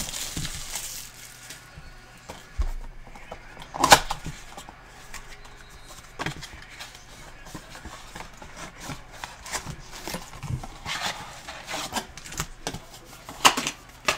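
A cardboard box of trading cards being unwrapped and opened by hand: cellophane crinkling, cardboard rubbing and scraping, and the foil card packs being handled and set down. There is a sharp snap about four seconds in and another near the end.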